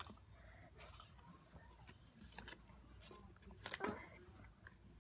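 Faint rustling and clicking of a candy wrapper being handled, with a brief louder crinkle about four seconds in.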